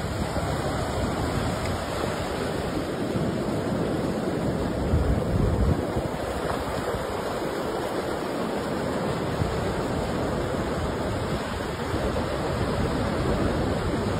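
Ocean surf breaking and washing up a sandy beach in a steady rush, with wind gusting on the microphone now and then.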